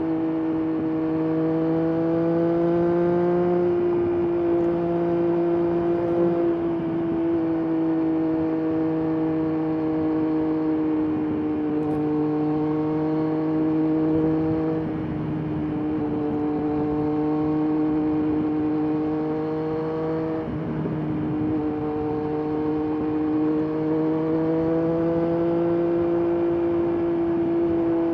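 Triumph Daytona 765 Moto2's inline three-cylinder engine and exhaust running at a steady cruise, its note drifting slightly up and down with small throttle changes.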